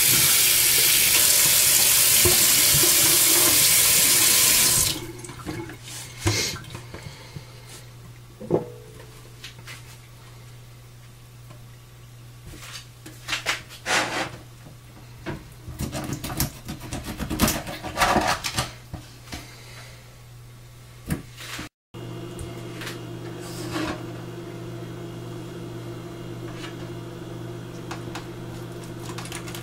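Kitchen tap running into a stainless steel sink as croaker are rinsed, shut off after about five seconds. After that, scattered short knocks and scrapes from work on the fish at a wooden cutting board, over a steady low hum.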